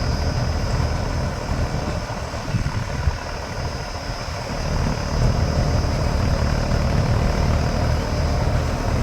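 Combine harvester running: a steady heavy engine drone with a constant high whine over it. It eases off slightly a couple of seconds in and comes back up about five seconds in.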